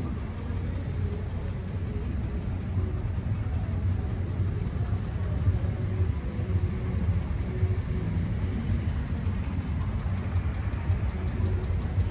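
Steady low rumble of a car's engine and road noise as the car rolls slowly along.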